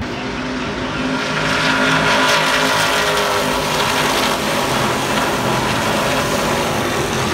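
Race vehicle engines running hard as cars and trucks pass on the circuit, swelling to their loudest about two seconds in.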